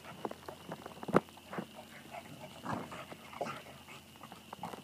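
A beagle and a black lab–bluetick hound mix play-fighting: short dog huffs and grumbles among scattered scuffling knocks, with one sharper knock about a second in.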